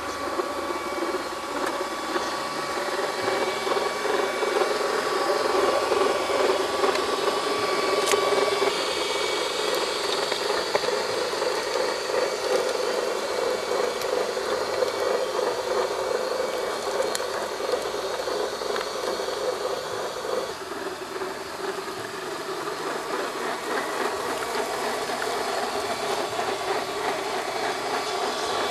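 RC4WD Trail Finder 2 scale crawler's electric motor and gearbox whining steadily as it crawls over loose dirt and rocks, with tyres crunching on gravel. The whine changes pitch about a third of the way in and again about two-thirds in as the throttle and load change.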